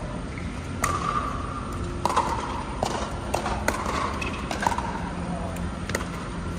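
Pickleball rally: paddles striking the plastic ball with sharp pocks, and the ball bouncing on the hard court, a string of hits roughly a second apart.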